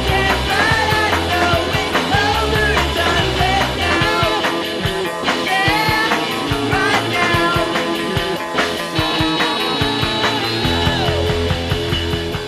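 Rock intro music with a steady beat, guitar and a lead melody, fading out near the end.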